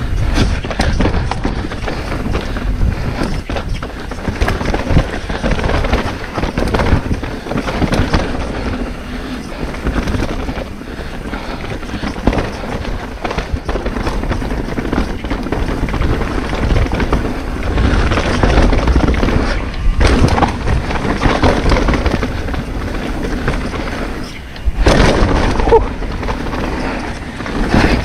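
Mountain bike riding fast down a rooty dirt singletrack: a steady rush of wind on the microphone and tyre rumble, with frequent knocks and rattles as the bike goes over roots and rocks. It gets louder for a few seconds in the middle and again near the end.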